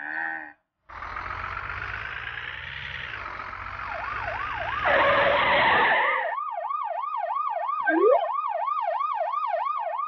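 A motor vehicle's engine runs for about five seconds. About four seconds in, a police siren starts up and keeps wailing up and down in a fast yelp, about three to four sweeps a second.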